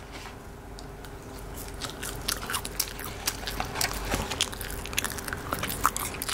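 French fries and their paper carton crackling and crunching as a hand pulls fries out of it, quick crisp crackles that grow denser after about two seconds, over a steady low hum.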